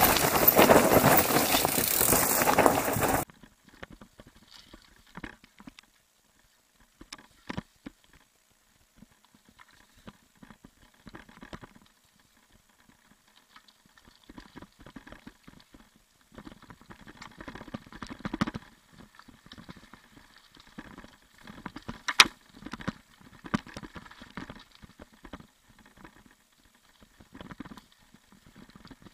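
Mountain bike passing close on rocky singletrack: a loud rush of tyre and brush noise that cuts off about three seconds in. After that come faint, scattered clicks, knocks and rattles of the bike riding down a rocky dirt trail, with one sharp knock a little after the middle.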